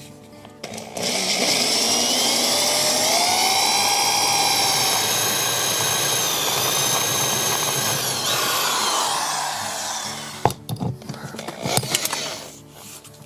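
Electric drill boring into a seized, rounded seatbelt anchor bolt, the bit whining and squealing with shifting pitch for about nine seconds before it stops. A few sharp knocks follow near the end.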